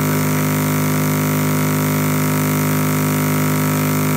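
Steady, unchanging buzzing hum, a low drone with a stack of higher overtones, the typical sound of electrical mains hum on an open broadcast audio line.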